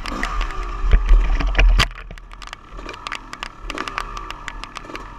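Raindrops striking a helmet-mounted camera in frequent sharp, irregular ticks, over the steady hum of an idling dirt bike engine. A heavy low rumble fills the first two seconds, then drops away.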